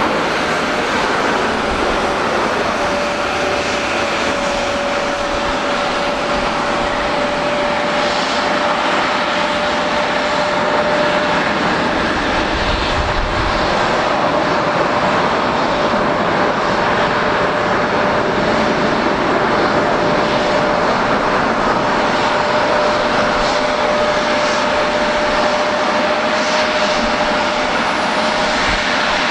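Boeing 767-300ER's twin turbofan engines running at low power as the airliner taxis: a steady rushing noise with a steady whine held through it.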